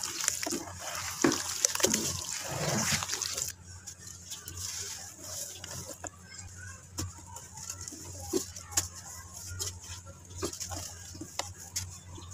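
Soft chunks of red dirt being crumbled and squeezed by hand in a basin of water: wet sloshing and splashing for about the first three seconds, then quieter, with scattered small splashes and drips as crumbs fall into the water.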